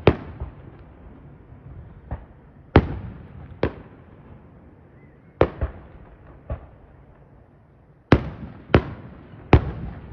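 Aerial firework shells bursting at a display: about ten sharp bangs at irregular intervals, some in quick pairs, each trailing off briefly.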